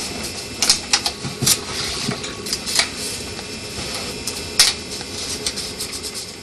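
A camera shutter clicking again and again at an irregular pace, a string of sharp clicks over steady room noise.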